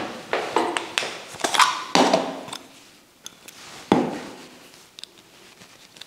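Light knocks and taps as a plastic model locomotive and small tools are handled on a workbench cutting mat. There are a handful of separate clunks, and the louder ones, about two and four seconds in, each ring briefly.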